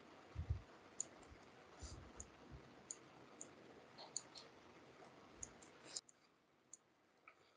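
Faint computer mouse clicks, about a dozen at irregular intervals, over a low hiss, with a few soft low thumps in the first three seconds. The hiss drops away about six seconds in.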